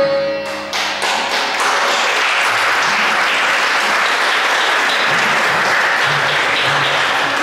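The ensemble's last ringing note of sarod, sitar and tabla stops about half a second in, and audience applause takes over and holds steadily.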